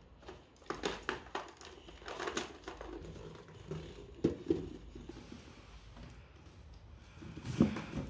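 Cardboard packaging box being handled: a toy robot set into the box, the lid pushed on and the box shifted over a wooden floor, giving irregular rustling, scraping and soft knocks, with a sharper knock about four seconds in and louder handling near the end.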